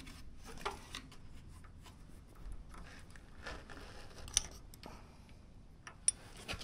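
Light metallic clicks and handling noise as pushrods are worked out from under the rocker arms of a Briggs & Stratton 20 hp Intech V-twin, with a few sharp ticks, the sharpest about six seconds in.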